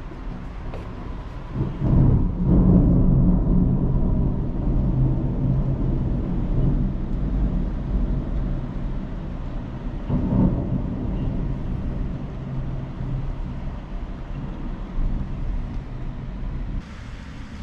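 Rolling thunder: a deep rumble that swells suddenly about two seconds in and fades away slowly, with a second peal around ten seconds in.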